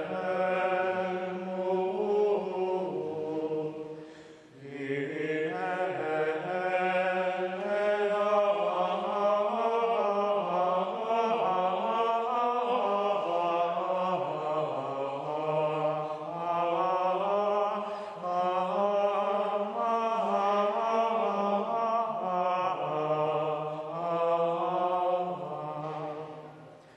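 Gregorian chant sung by voices in unison: one slow, flowing melodic line with a short breath about four seconds in, and the phrase dying away near the end.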